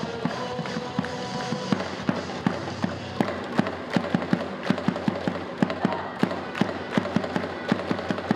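Stadium cheer music with sharp claps from the stands, about two or three a second in a loose rhythm.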